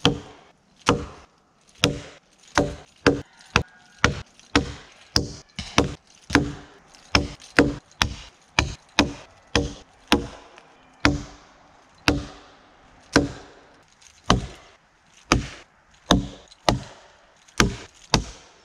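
An axe chopping into a fallen tree trunk: a steady run of sharp wooden chops, about one to two strokes a second, each with a short ring.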